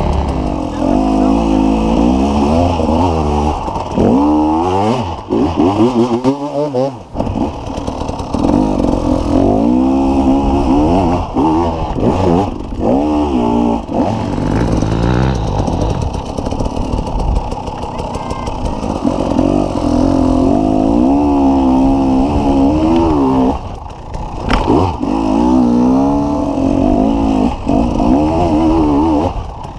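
Enduro dirt bike engines revving hard in repeated surges, the pitch climbing and dropping again and again as the bikes work up a steep hill, with a couple of brief lulls.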